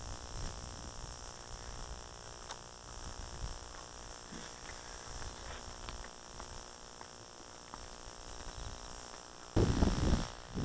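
Faint steady hiss and hum with a few faint ticks. About a second before the end it changes suddenly to louder wind rumbling on the microphone.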